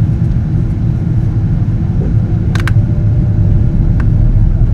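Steady low rumble of a Boeing 777-200's engines and airflow heard inside the passenger cabin, with a brief double click a little past halfway and another click near the end.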